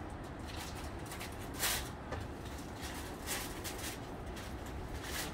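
Handling noise from foil food trays and utensils: a few short rustles and clicks over a low steady rumble.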